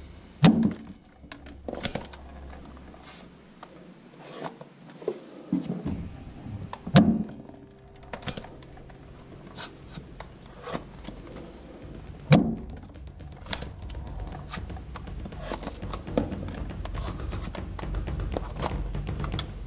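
A series of sharp knocks and clicks, spaced irregularly a second or more apart, with quieter rubbing and handling noise between them, as of hard objects being handled and set down.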